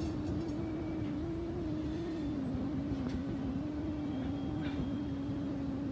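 Freight train of loaded covered hopper cars rolling slowly past: a dense low rumble with a steady, slightly wavering drone over it.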